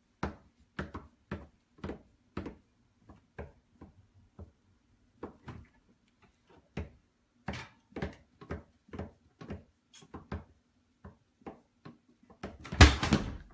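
Irregular sharp knocks and clatters from a toddler moving about inside a wooden kitchen cabinet, bumping the cabinet and the pans and lid stored in it. A louder burst of clatter comes near the end.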